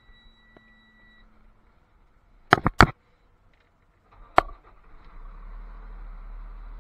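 A steady high beep stops about a second in. A quick run of loud sharp knocks comes near the middle and a single knock follows. Then the low rumble of the truck's Cummins ISL diesel engine comes up and runs steadily.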